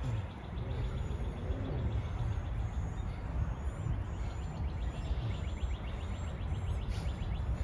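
Outdoor background noise: a steady low rumble with faint, evenly repeating high chirping.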